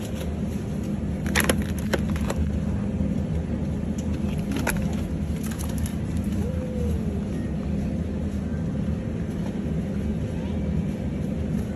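Steady low hum of a supermarket's open refrigerated display cabinets, with a few brief crackles of a plastic meat tray being picked up and handled.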